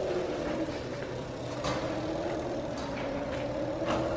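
OSET electric kids' dirt bike running at low speed, its motor giving a steady whine that drifts slightly up and down in pitch, with a couple of light clicks.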